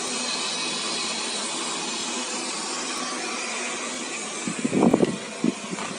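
Xiaomi Mi Robot Vacuum running with the steady hiss of its suction fan and brushes. About four and a half seconds in there is a short loud clatter, then a couple of lighter knocks.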